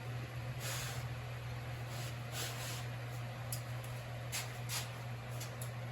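A steady low hum with a few faint swishes and light ticks of handling.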